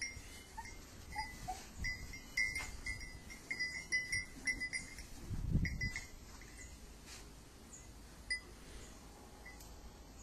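A small bell or tags on a beagle puppy's collar tinkling in short, irregular jingles as it moves about in straw; the tinkling stops about six seconds in, as the puppy lies down. A short low sound comes about five and a half seconds in.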